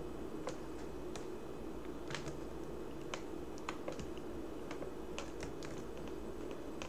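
Sparse, irregular computer keyboard keystrokes and clicks as code is copied and pasted in a text editor, over a steady low background hum.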